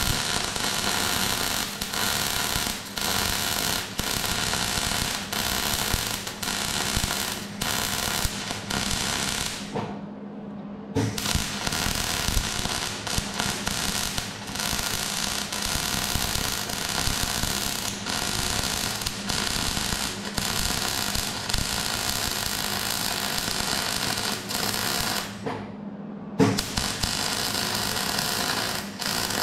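MIG welding arc crackling in long continuous runs on steel, breaking off briefly twice as the torch trigger is released.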